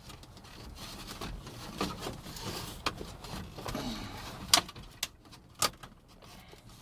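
Hands working loose plastic dash trim: light rustling and handling noise with a few sharp plastic clicks and taps, the clearest near the middle and a little past it.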